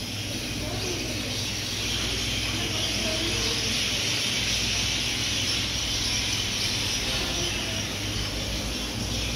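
A large flock of birds perched along a building's roofline, chattering together in a loud, dense, continuous chorus of high chirps.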